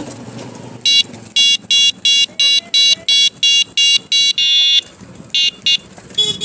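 Electronic buzzer beeping in a quick, even rhythm, about three short high-pitched beeps a second, then one longer beep and a few irregular short ones near the end, over faint road and wind noise.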